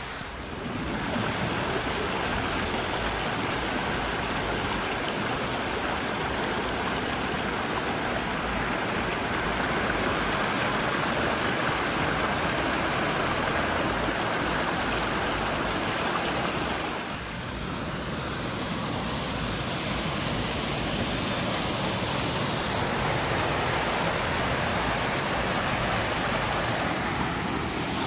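Mountain creek rushing over rocks and fallen logs: a steady wash of water noise, dipping briefly about two-thirds of the way through.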